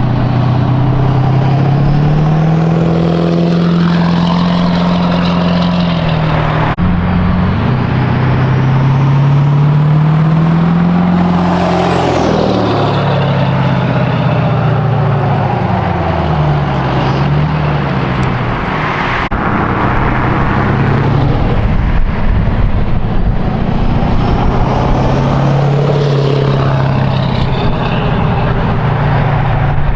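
Ford F-250 diesel V8, running a non-VGT S366 turbo, revving and pulling. The engine pitch rises and falls over several short clips, with a high whistle that climbs and drops away near the middle.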